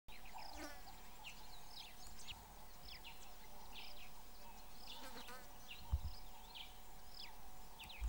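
Natural bush ambience: a steady insect buzz, with short falling chirps repeating roughly twice a second above it. There is one low thump about six seconds in.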